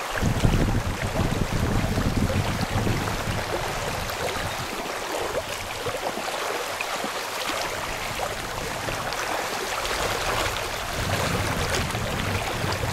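Fast-flowing river rushing over stones, a steady hiss of water, with low gusts of wind rumbling on the microphone in the first few seconds and again near the end.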